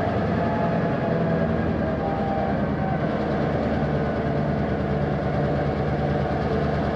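Diesel locomotive engine running steadily at a constant pitch, with no change in level.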